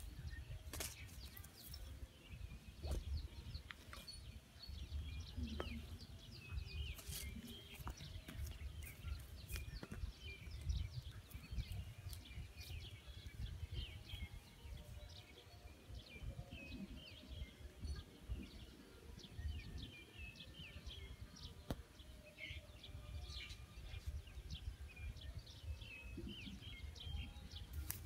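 Small birds chirping: many short, high calls scattered through the whole stretch, over a faint low rumble and a few sharp clicks.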